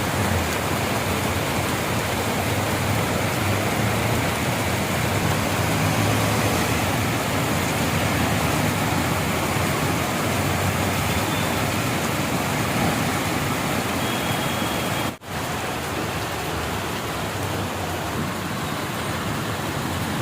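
Heavy rain pouring down, a dense steady hiss. The sound drops out for an instant about fifteen seconds in, then carries on slightly quieter.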